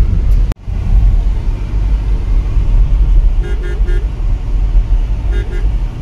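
A car's horn tooting, three quick beeps about three and a half seconds in and two more near the end, over the steady low rumble of a car driving, heard from inside the cabin.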